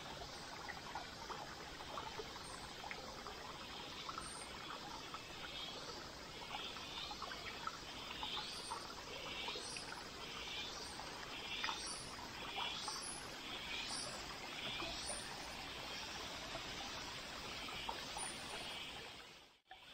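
A small forest stream trickling steadily over rocks. From about a third of the way in, a run of short, high chirping calls repeats a little more than once a second for several seconds. The sound drops out abruptly near the end.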